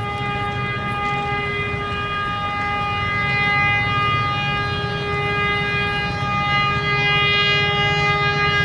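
Diesel locomotive horn sounding one long, unbroken blast over a low rumble.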